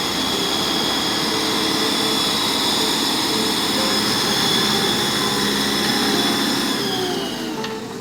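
Backhoe loader's diesel engine running steadily under work, with a high whine over it; near the end the pitch drops as the engine eases off.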